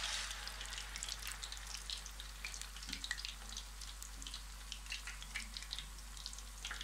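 Battered rohu fish pieces deep-frying in hot oil: a steady sizzle with many small crackles and pops, a little louder in the first second as a piece goes into the oil.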